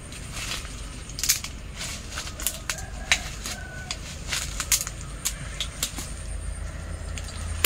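Hand pruning shears snipping the shoots of a jackfruit tree, heard as irregular sharp clicks and snaps.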